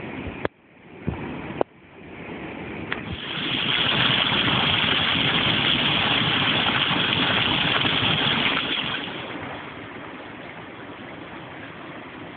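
Rushing floodwater, a steady hiss of moving water that swells loud about three and a half seconds in and eases back around nine seconds. Two sharp clicks come near the start, each followed by a brief dip in sound.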